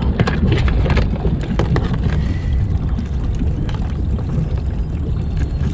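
Crab net being hauled in over the side of a small boat: scattered clicks and rustles of the net and its line against the hull, most in the first second or two, over a steady low rumble.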